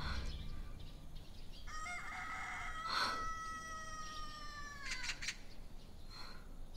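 A rooster crowing once: one long drawn-out call that holds its pitch and then drops away at the end. A short soft knock sounds about halfway through.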